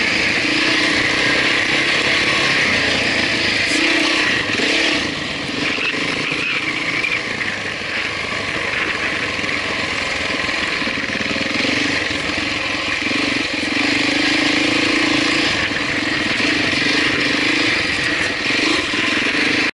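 Honda 650 single-cylinder four-stroke enduro motorcycle ridden along a dirt trail, the engine pulling steadily under throttle with brief dips when the throttle eases, mixed with heavy wind rush over the helmet-camera microphone.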